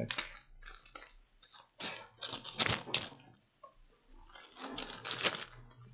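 Irregular small clicks, taps and scrapes of laptop parts being handled during disassembly, coming in short clusters with a brief lull about three and a half seconds in.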